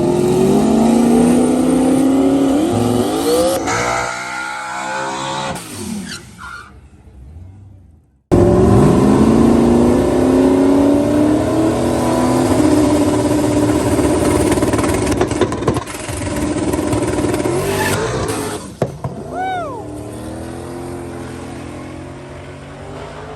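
A turbocharged 5.3-litre LS V8 drag car is at full throttle, its engine note climbing as it launches and pulls down the strip, then fading away. A sudden cut about eight seconds in starts a second launch that climbs the same way and fades near the end.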